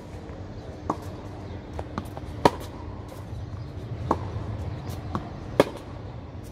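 Tennis rally on a hard court: sharp pops of tennis balls struck by racket strings, mixed with softer ball bounces. The loudest hits come about three seconds apart, one near the middle and one near the end.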